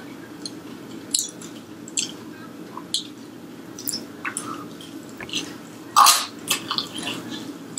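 Wet mouth sounds of someone eating a deep-fried egg roll dipped in sauce: sharp smacks and clicks while chewing, about one a second, the loudest about six seconds in as fingers go to the mouth. A steady low hum runs underneath.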